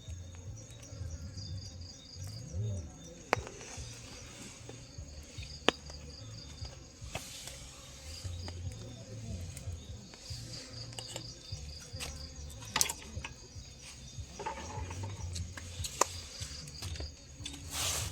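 Crickets or similar insects chirping in rapid, repeating pulses, with a few sharp knocks or clicks now and then and a low rumble underneath.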